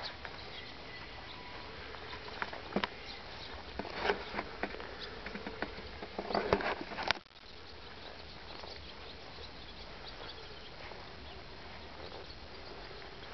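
Steady outdoor background noise with a run of irregular clicks and knocks in the middle that stops abruptly about seven seconds in.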